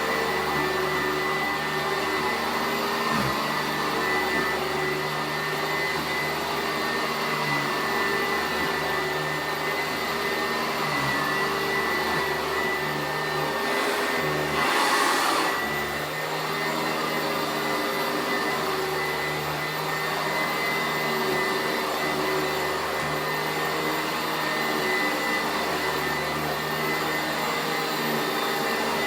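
Sanitaire SC889A commercial upright vacuum running steadily while vacuuming, a steady motor hum under the rush of air. About halfway through there is a brief, louder rush.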